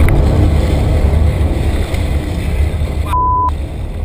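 Loud, heavy splashing and churning water as a hippo charges through the river beside a kayak, easing slightly near the end. A short censor bleep cuts in about three seconds in.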